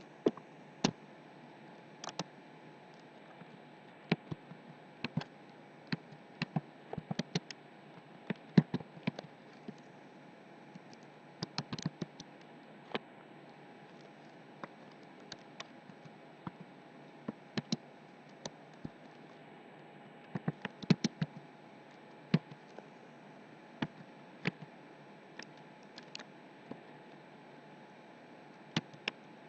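Computer keyboard keys clicking irregularly, singly and in quick little clusters, over a steady faint hiss.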